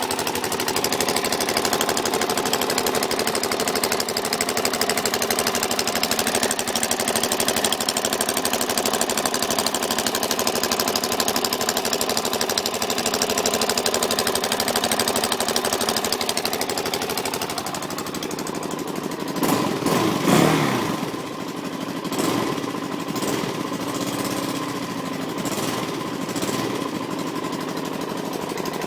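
Suzuki DR-Z400SM single-cylinder four-stroke engine running with a fast, loud clicking, a noise that appeared after over-revving in first gear and seems to come from the carburettor/crankcase area. About two-thirds of the way through the engine revs up briefly and falls back, then runs on more quietly.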